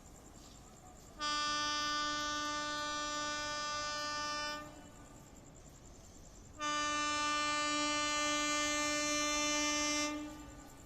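Air horn of a WAP7 electric locomotive sounding two long, steady blasts of about three and a half seconds each, a couple of seconds apart.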